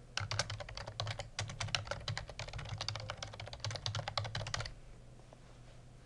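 Typing on a computer keyboard: a quick run of keystrokes that stops about three quarters of the way through.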